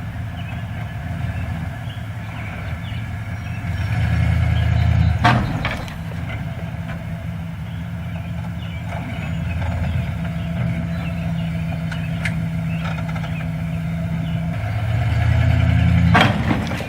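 A heavy engine running steadily, rising in load twice, each rise ending in a sharp crash.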